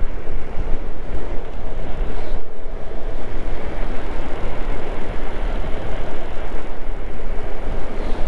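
Wind rushing and buffeting over the microphone with road noise from a moving vehicle, a steady loud rush without any engine note.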